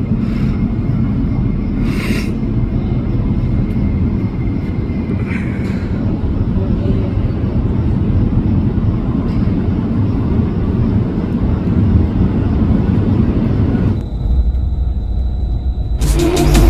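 Steady low rumble of a passenger train in motion, heard from inside the carriage. Near the end it gives way to electronic drum-and-bass music.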